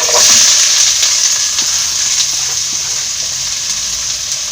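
Chopped onions tipped into hot oil in a pan, sizzling loudly the instant they go in and easing slightly as the sizzle settles.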